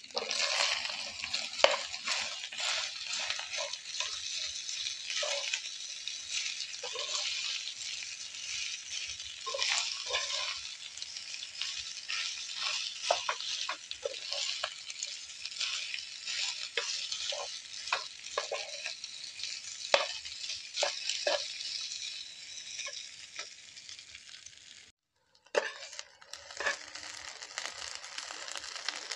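Cooked rice sizzling as it fries in oil in a metal pan, stirred and turned with a metal spatula that scrapes and taps the pan. The sizzle cuts out abruptly for about half a second near the end, then carries on.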